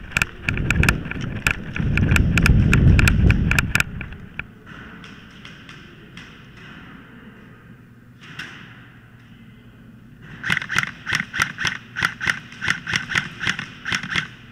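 Airsoft rifle firing rapid semi-automatic shots, each a sharp crack, in two strings: one in the first four seconds over a low rumble, and one starting about ten seconds in at roughly four shots a second.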